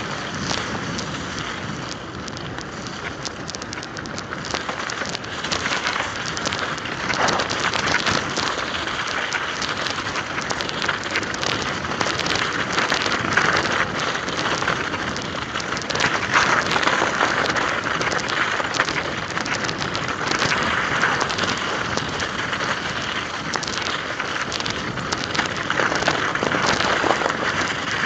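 Mountain bike tyres rolling over ice and crusted snow: a continuous crackling hiss.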